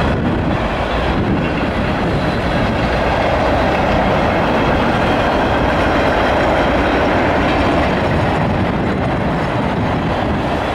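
Freight cars of a CSX manifest train rolling past: a loud, steady noise of steel wheels running on the rails.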